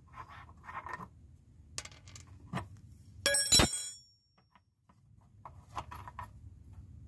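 Steel hand tool and bolt under a car: a few faint metal clicks, then one loud metallic clink with a bright ringing tail about three and a half seconds in.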